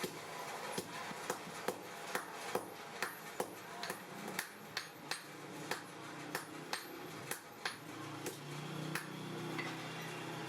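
Blacksmith's hammer striking hot steel on an anvil: a run of sharp ringing blows, about two to three a second, that stops about eight seconds in. A low hum follows near the end.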